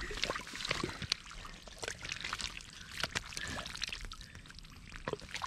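Hands splashing and grabbing in shallow muddy water, a run of short wet splashes and slaps.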